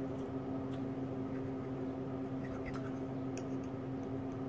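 A steady low hum with faint ticks scattered through it.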